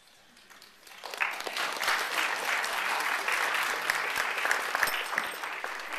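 Audience applauding, starting about a second in and holding steady: many hands clapping at once.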